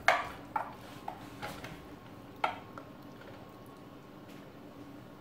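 Metal serving spoon clinking and scraping against a ceramic baking dish while scooping out baked pasta: a handful of sharp clinks in the first two and a half seconds, the last one about two and a half seconds in, then only faint soft sounds.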